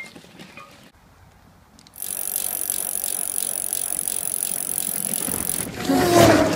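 Drift trike rolling fast down a dirt trail, its wheels and frame rattling steadily from about two seconds in. It swells to a loud rush as it passes close by near the end.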